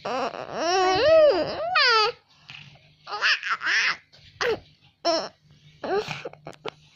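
A young girl's high, wavering whimpers in the first two seconds, then a string of short breathy gasps and sobs: crying held back from bursting out.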